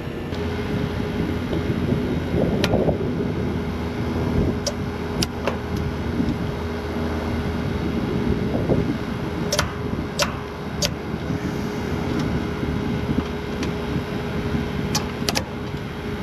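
Vacuum pump running steadily with a hum while it pulls a deep vacuum on a new air-conditioner line set, with a number of short, sharp clicks.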